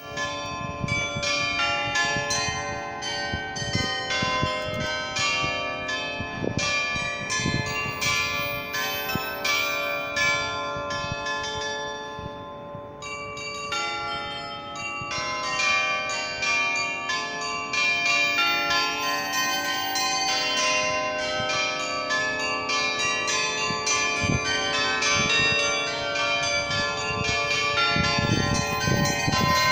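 The Swiss glockenspiel's set of 27 tuned bells chiming a tune to sound the hour, many quick strikes overlapping and ringing on. The ringing thins out briefly about twelve seconds in, then fills again.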